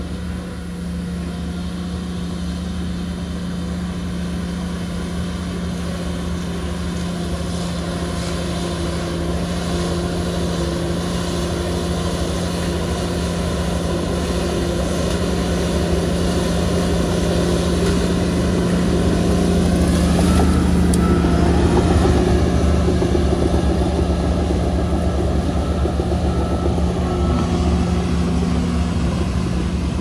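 Large Komatsu bulldozer's diesel engine running steadily with a continuous hum, growing louder to a peak about two-thirds of the way through and then easing slightly.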